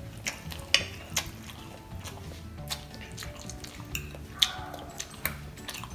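Metal fork clicking and scraping against a glass dish of instant noodles, a dozen or so irregular sharp clicks, over soft background music.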